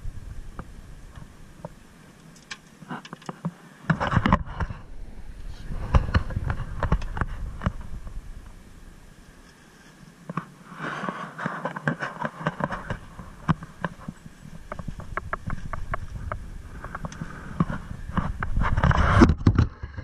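Knocks, clicks and scraping rumble of handling noise on a boat-mounted action camera as a fish is played and netted, in uneven bursts with two quieter lulls.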